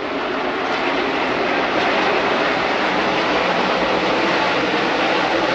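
A pack of NASCAR Cup Series V8 stock cars running on the track, the massed engine noise swelling over about the first second and then holding steady and loud.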